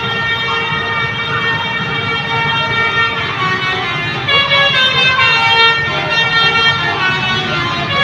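Bus 'telolet' multi-tone horn held in a long, steady, siren-like blast, getting louder about four seconds in, with people's voices over it.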